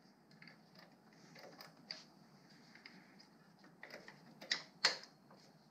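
Faint, scattered small clicks and ticks of hands working the throttle slide and cable out of a Sachs 50cc moped carburetor, with two sharper clicks about four and a half seconds in.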